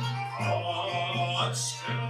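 Mevlevi Sema ceremony music: a melody over a low, regularly pulsing beat.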